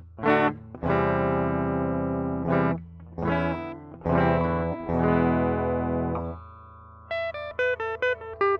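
Electric guitar played through effects pedals: strummed chords ringing about a second each with short pauses between, then a quick run of single notes stepping up and down near the end.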